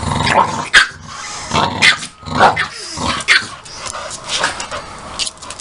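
Two dogs, a chihuahua and a larger dog, at play: growling with a string of short, sharp barks at irregular intervals.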